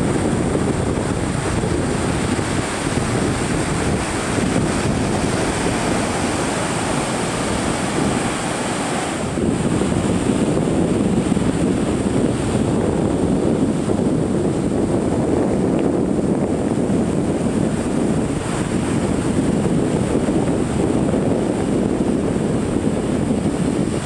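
Ocean surf washing up a sandy beach, a steady rush, with wind buffeting the microphone. There is a brief break about nine seconds in, after which the rush is a little louder.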